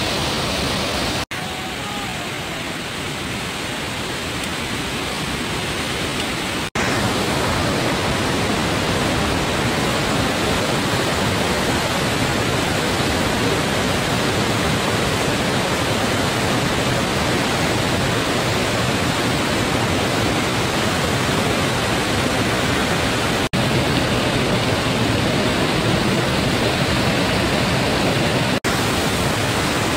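Steady rush of water from a mountain stream tumbling down a rocky cascade. The sound cuts out for an instant and changes level a few times: about a second in, about a quarter of the way through, and twice near the end.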